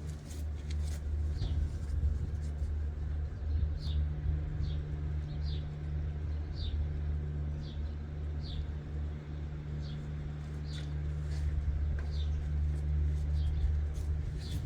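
A low, steady mechanical hum, with a small bird repeating a short, high, falling chirp about once a second.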